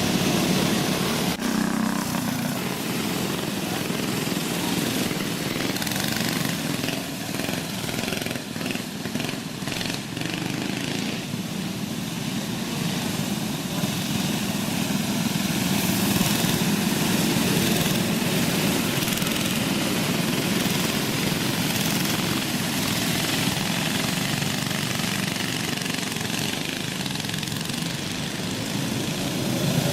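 Small go-kart engines running as a pack of karts races on a dirt track, a steady engine drone.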